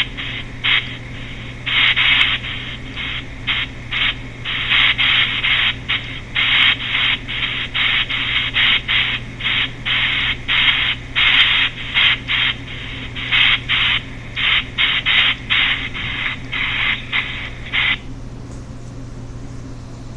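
Chopped pink noise from the Pink Noise Chopped ghost-hunting app, played as a backdrop for catching EVP voices: a hiss cut into rapid, irregular bursts of varying length and loudness. It cuts off suddenly about 18 seconds in, leaving a low steady hum.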